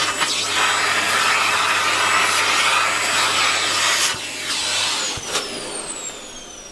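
Vacuum cleaner running, then switched off about four seconds in; its motor whine falls in pitch as the motor spins down.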